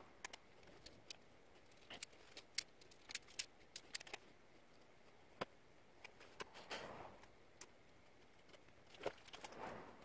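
Small, sharp clicks and taps of a plastic dashboard switch panel and wire connectors being handled and fitted, scattered irregularly, with two brief rustles of handling about seven and nine and a half seconds in.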